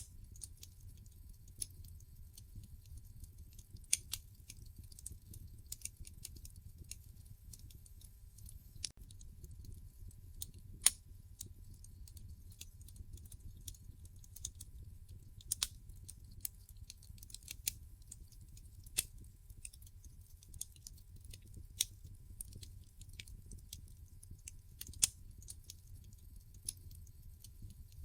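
Wood fire crackling in a fireplace: irregular sharp pops and snaps, a loud one about eleven seconds in, over a low steady rumble.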